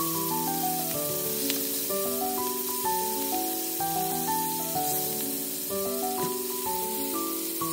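Sauce-coated shrimp sizzling steadily in oil in a frying pan, with a melody of background music over it.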